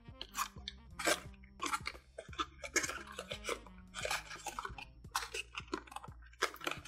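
Folded paper of an origami mask crinkling and crackling in short irregular bursts as fingers pinch and shape it.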